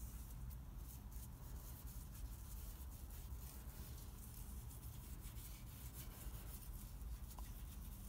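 Faint rubbing and scratching with a few light clicks as hands handle a Citroën 2CV stub axle housing and its gasket, over a low steady hum.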